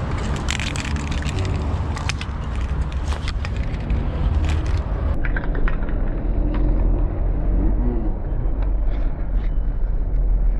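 A ladder clattering and knocking as someone climbs down it onto rubble, with a steady low rumble underneath; the knocks thin out to a few isolated clicks after about five seconds.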